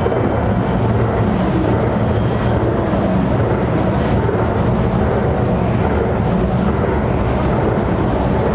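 Mitsubishi escalator running with an abnormal noise: a steady, unbroken mechanical rumble, strongest in its low hum.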